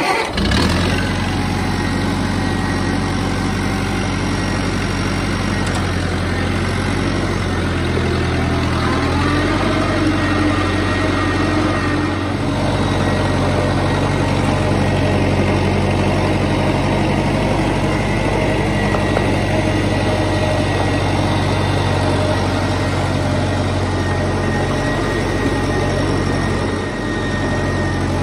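Farmall Cub's small four-cylinder flathead engine running steadily as the tractor is driven at low speed. It comes in abruptly at the very start.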